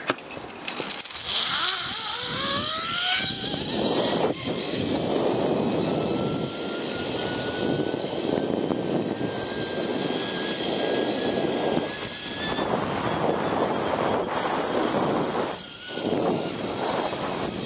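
Zip-line trolley pulleys running along the steel cable: a thin whine that climbs slowly in pitch as speed builds and stops about twelve seconds in, over a steady rush of wind on the microphone.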